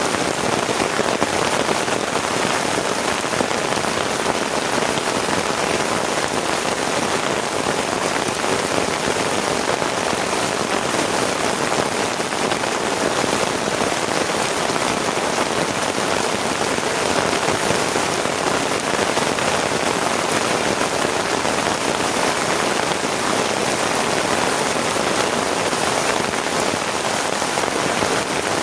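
Heavy rain falling steadily, a dense even patter of drops that keeps up without let-up.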